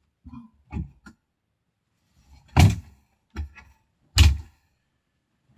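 A series of short knocks and thumps: a few light ones in the first second, then two loud thuds about two and a half and four seconds in, with a smaller one between them.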